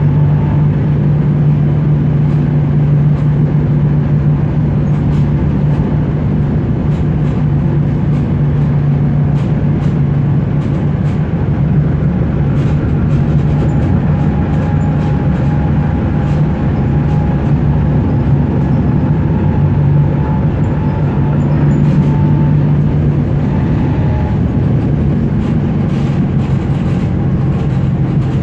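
Tatra KT8D5 articulated tram running along the line: a steady loud rumble of wheels on rail with a low motor hum, and a faint higher whine that comes and goes through the middle stretch.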